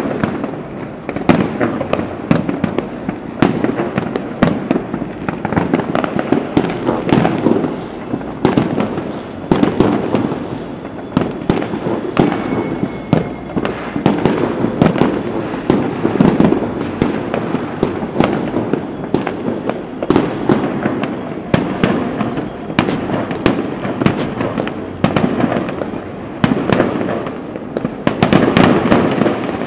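Many fireworks going off at once in a dense, continuous barrage of overlapping bangs and crackles.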